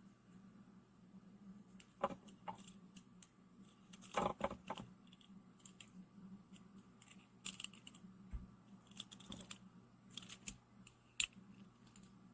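Small folding pocket knife being handled, its blade flicked open and shut, making scattered light metallic clicks and ticks.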